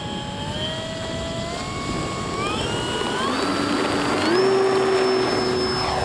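Electric motor of a radio-controlled model aircraft whining, its pitch rising in several steps over the first four or five seconds as the throttle is opened, then holding steady at a high pitch.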